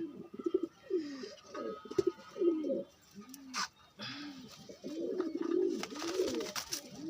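Domestic pigeons cooing, a string of low rising-and-falling coos that overlap into a denser chorus from about five seconds in, with a couple of sharp clicks along the way.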